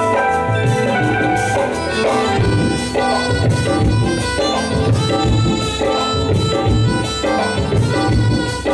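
Live band playing an instrumental passage of a Hindi film song: tabla and congas keep a steady beat under a sustained melody line.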